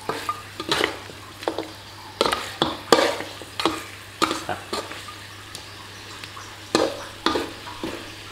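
Pork ribs with lemongrass being stir-fried: a utensil scraping and knocking against the pan in irregular strokes over a light sizzle.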